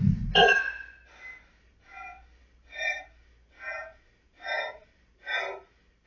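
A man breathing hard from kettlebell long-cycle lifting. A loud, forceful breath comes at the start, then heavy panting settles into short breaths about one every 0.8 seconds.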